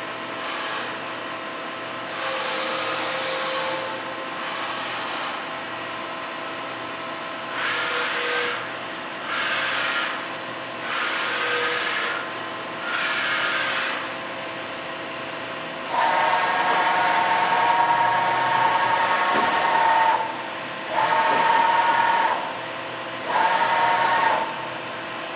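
Daewoo ACE-H100 horizontal machining center jogging its axes by hand control: a series of separate moves, each a burst of motor and slide whine lasting one to a few seconds, with the longest and loudest moves near the end. Under the moves runs the machine's steady idle hum.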